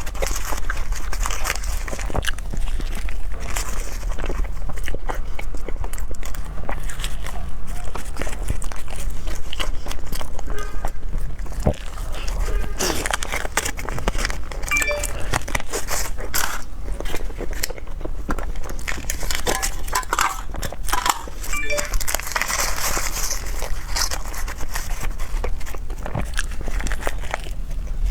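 A person eating fruit dessert close to the microphone: bites and chewing, with a dense run of small clicks throughout.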